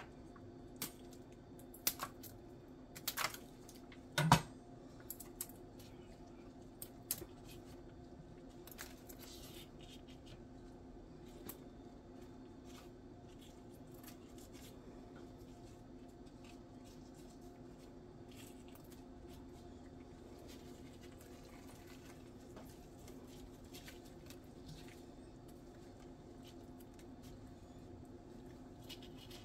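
Knife cutting butcher's twine off a smoked rib roast: a handful of sharp snips and clicks of the blade against a bamboo cutting board over the first several seconds, the loudest about four seconds in. After that only a faint steady hum remains.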